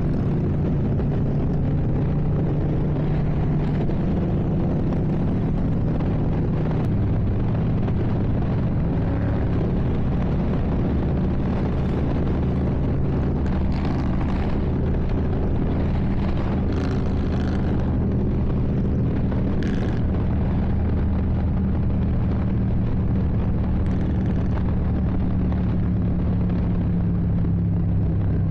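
Motorcycle engine running at a steady cruise while riding, with wind noise over the microphone.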